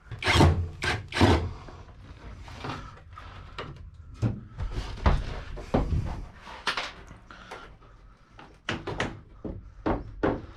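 Irregular knocks, scrapes and rattles of the ply lining and rusted fasteners being worked loose from the van's metal panel, with a cluster of sharper knocks about a second in and again near the end.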